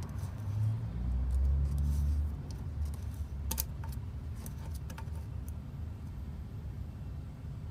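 Turtle's claws scraping and clicking on a plastic crate as it pushes and kicks, stuck partway into an opening. A low rumble comes in the first couple of seconds, then a handful of sharp clicks near the middle.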